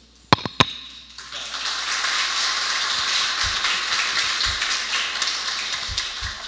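Two sharp claps, then a small audience applauding steadily from about a second in, dying away at the very end.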